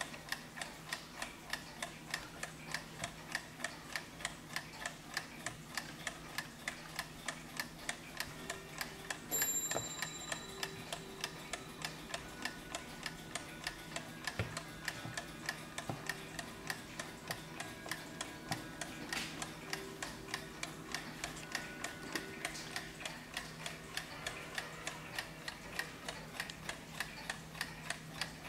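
Junghans antique mantel clock's movement ticking steadily and evenly. About nine seconds in, a brief high tone sounds over the ticking.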